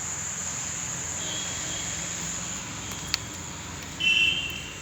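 Steady high-pitched insect drone that fades out about two-thirds of the way through. A single sharp click comes near three seconds in, and a brief high tone near the end is the loudest sound.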